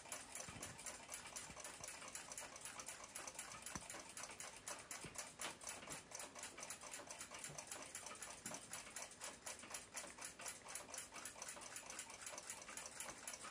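Faint, fast, steady ticking of a running clock, several ticks a second.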